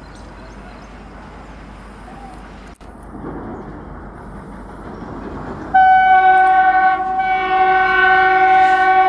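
Twin WDM-3A ALCO diesel locomotives accelerating a passenger train, their engine rumble growing louder. About six seconds in, the locomotive horn sounds a long, loud multi-tone blast that dips briefly about a second in and then carries on.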